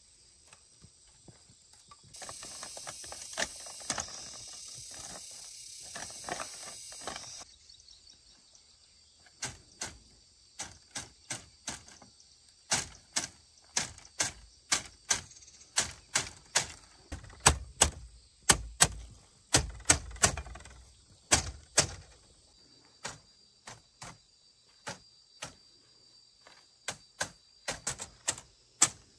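Machete striking bamboo fence stakes and slats: a run of sharp, separate knocks, one to two a second, with a few heavier thumps in the middle. Before the chopping, a steady high hiss starts about two seconds in and stops about five seconds later.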